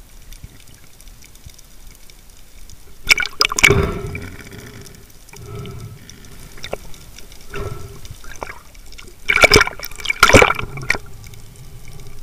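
Water moving around an underwater camera, with two loud, noisy rushes: one about three seconds in and a longer one around nine to eleven seconds, with smaller ones between.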